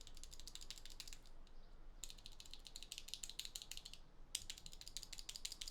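Unlubed NovelKeys Cream linear keyboard switch pressed rapidly and repeatedly, giving quick runs of light clicks and clacks. There are three runs, with short pauses about one and a half seconds in and about four seconds in.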